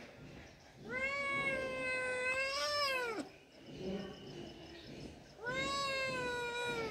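A cat giving two long, drawn-out meows, each held at an even pitch: the first lasts over two seconds and drops off sharply as it ends, the second starts about two seconds later and runs to the end.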